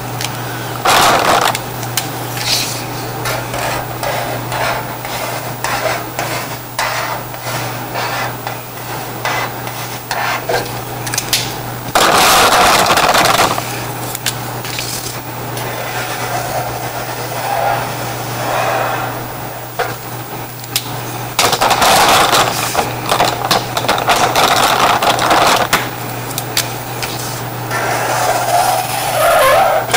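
Felt-tip markers stroking over paper in irregular bursts, over a steady low hum.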